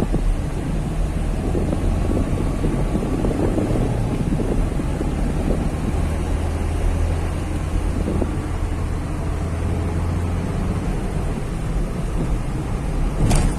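Maruti Suzuki Swift VDi's 1.3-litre diesel engine running under acceleration, heard from inside the cabin as a low steady drone with tyre and wind noise. The drone strengthens about halfway through.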